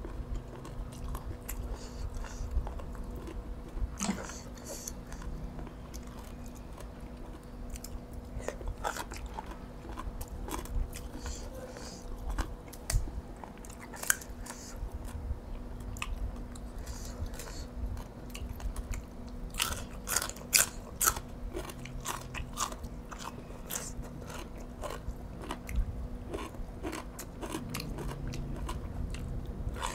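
A person chewing and biting food close to the microphone: wet mouth clicks and small crunches, with a denser run of sharp crunches about two-thirds of the way through. The food is boiled field snails picked from the shell with a toothpick. A faint steady hum runs underneath.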